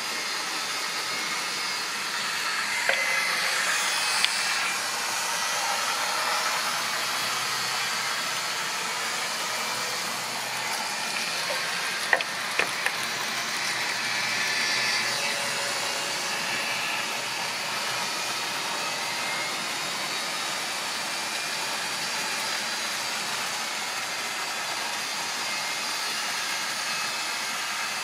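Model railway trains running on the layout: a steady whirr of small electric motors and wheels rolling on the track, with a few sharp clicks about 3 and 4 seconds in and again about 12 seconds in.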